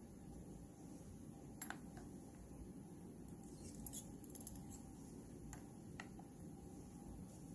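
Faint light clicks and ticks of a small metal spatula against a plastic powder jar and a glass test tube while scooping powder, with a short run of quick ticks near the middle; quiet room noise underneath.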